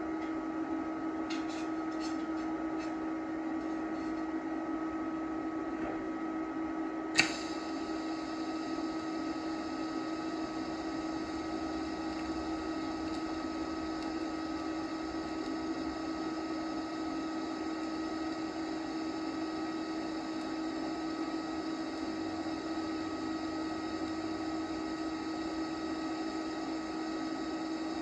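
TIG arc from a YESWELDER TIG 205-DS inverter welder, lit with a sharp high-frequency-start crack about seven seconds in, then burning with a steady hiss over the machine's constant hum.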